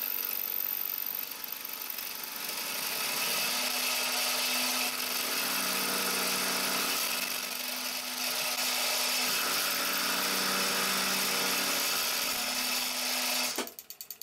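Milling machine spindle running while an end mill face-cuts the top of a stainless steel hex-head bolt held in a collet block, a steady machining whine that stops suddenly near the end.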